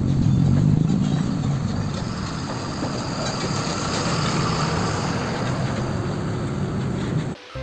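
Steady rush of water washing mud off a toy truck, cutting off suddenly near the end.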